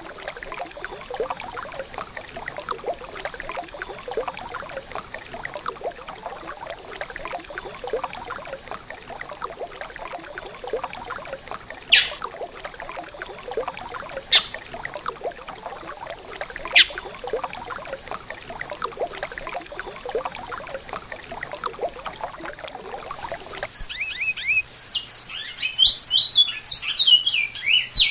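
Great-billed seed finch (bicudo) singing in rapid whistled phrases, coming in strongly in the last few seconds after a long stretch of busy, even background sound broken by three sharp clicks.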